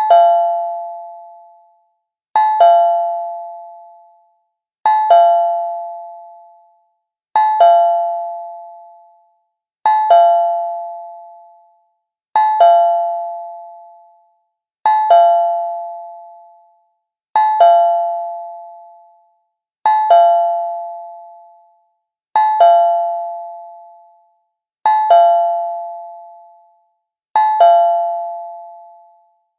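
Cartoon doorbell chime: a quick two-note ding-dong that rings out and fades, repeated about every two and a half seconds, twelve times over.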